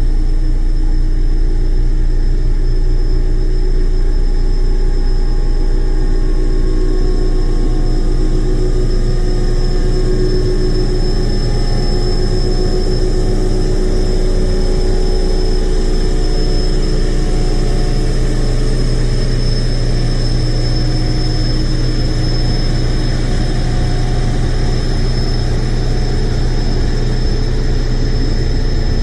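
Heavy truck engine idling steadily, with a thin high whine over a low hum.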